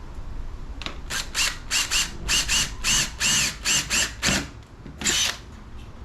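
Power drill boring a hole through a solar panel's aluminum frame, run in a quick series of short trigger pulses, its motor whine rising and falling with each one, followed by one last burst.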